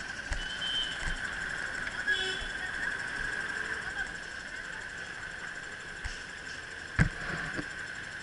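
City street traffic at an intersection: cars passing, over a steady high hum. A single sharp knock about seven seconds in.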